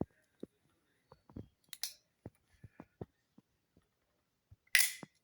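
Switchblade knife being handled with a series of small clicks, then a sharp snap about 1.8 s in and a louder snap near the end as the spring-driven blade fires open: it kicks like a mule opening.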